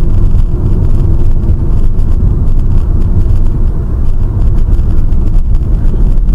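A moving car's road and engine noise: a loud, steady low rumble with faint ticks and rattles.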